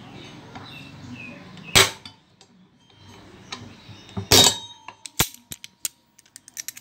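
Two sharp metal bangs about two and a half seconds apart, then a quick run of light metallic clicks, as hand tools work on the steel drive pulley of a washing machine, with locking pliers clamped on its hub to loosen the centre bolt.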